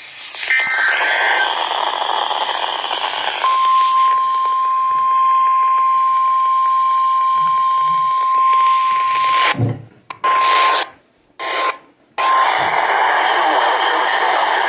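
NOAA Weather Radio received through static. It opens with the tail of the Emergency Alert System data header, a short two-pitch warbling screech. A couple of seconds later the steady weather-radio warning alarm tone sounds for about nine seconds, cutting out briefly three times near its end. This is the alert signal that comes before a relayed warning message.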